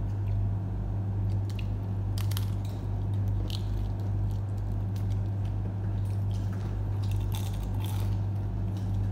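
Close eating sounds: a fried puri being torn by hand and bitten, with scattered short crackles and wet chewing. A loud steady low hum runs underneath.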